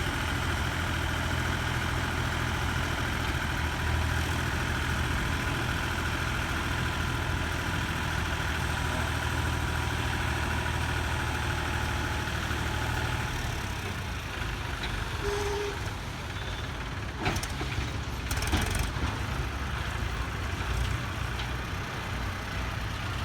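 Tractor engine running steadily, then quieter from about two-thirds of the way through, with a couple of sharp knocks near the end.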